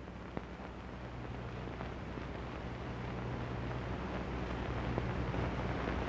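Background noise of an old film soundtrack: a steady low mains hum with hiss, slowly getting louder, and a short click about half a second in.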